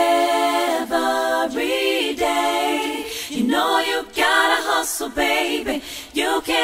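Unaccompanied singing voices, a cappella, holding and gliding between notes in short phrases with no instruments.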